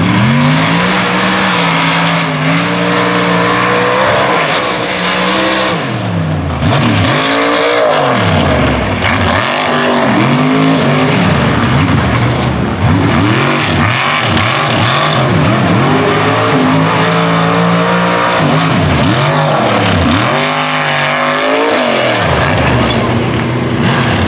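Mega truck engine running hard through a run on a dirt track, loud throughout, its pitch rising and falling again and again as the throttle is worked.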